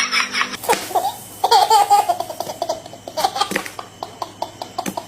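Young children laughing: a rapid run of laugh pulses that stops about half a second in, then high-pitched giggles and squeals.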